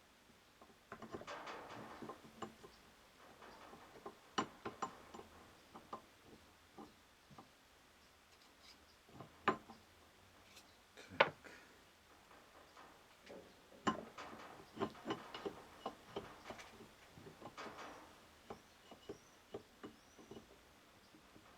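Faint, scattered metallic clicks and taps with bouts of rustling as the parts of a cardan universal joint are handled and fitted together by hand, the cross with its needle rollers being worked into the mating yoke. The two loudest clicks come about nine and eleven seconds in.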